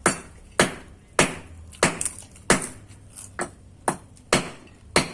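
Loud, sharp knocks repeating at a steady pace, a little under two a second, the 'tok-tok' knocking.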